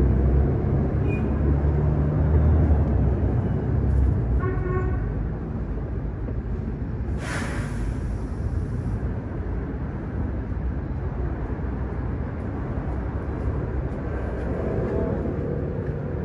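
Street traffic: a low vehicle rumble that fades after the first few seconds, a short horn toot about four seconds in, and a burst of hiss lasting about two seconds just past the middle.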